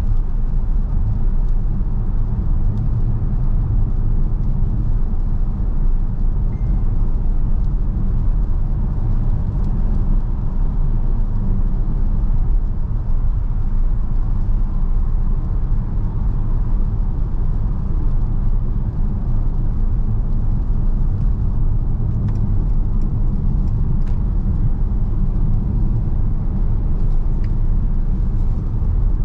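Mercedes-Benz V 300 d van driving at a steady speed, its 2.0-litre four-cylinder diesel and road noise making a continuous low rumble that holds even throughout.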